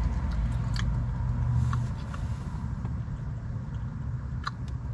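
Steady low vehicle rumble heard inside a car cabin, with a few faint clicks from eating and handling food.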